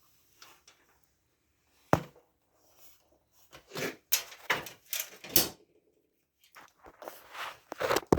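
Sheet-metal dryer cabinet parts being handled during disassembly: a sharp knock about two seconds in, then a series of scrapes and clunks.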